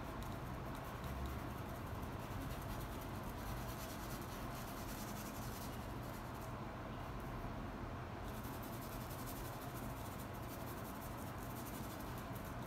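Bristle paintbrush brushing acrylic paint across a canvas in repeated strokes, a soft scratching and rubbing, over a steady low hum.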